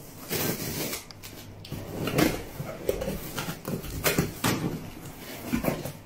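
Cardboard shipping box being opened by hand: cardboard and packing tape scraping and rustling, with a few short, sharp scrapes spread through.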